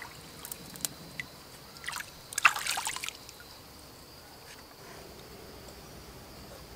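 Shallow stream water splashing and trickling around a rock, with a short burst of splashes about two and a half seconds in, then settling to a faint steady trickle.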